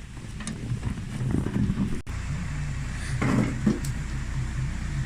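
An engine idling steadily, getting louder over the first second and then holding level, with a few brief louder knocks about three seconds in.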